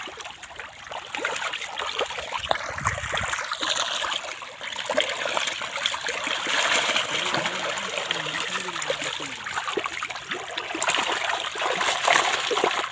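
A crowd of fish thrashing and splashing in shallow muddy water as they feed on kitchen scraps: continuous sloshing and spattering, with sharper, louder splashes near the end.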